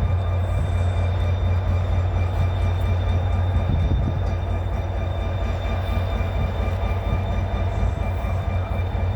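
Diesel locomotive running with a loud, steady deep drone and a faint high whine, with no change in pace.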